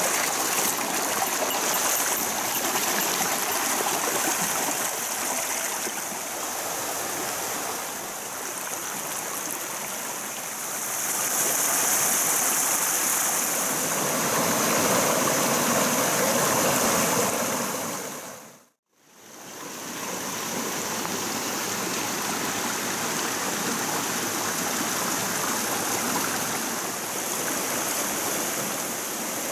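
Steady rush of a rocky mountain stream running over stones and small cascades. The sound fades out briefly about two-thirds of the way through, then comes back a little quieter.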